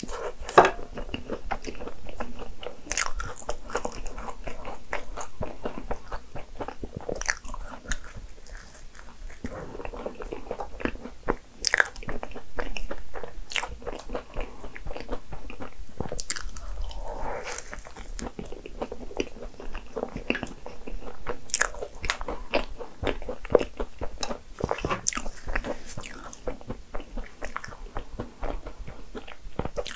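A person biting and chewing biscuit choux: crisp crunches as the cookie-crusted choux shell breaks, with softer wet chewing of the cream filling between the crunches.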